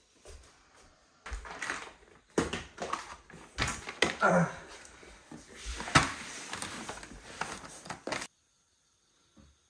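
Handling noises of household work: a run of knocks and clicks with stretches of ripping as masking tape is pulled off its roll. The sound cuts off suddenly near the end.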